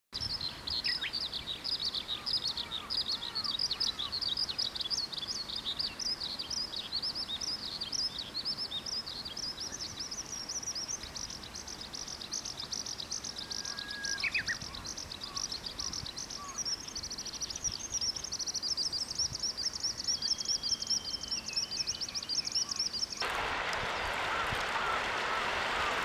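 Eurasian skylark singing a long, unbroken run of rapid high chirps and trills, with a few other short bird whistles over it. About 23 seconds in it cuts to the steady rush of a babbling stream.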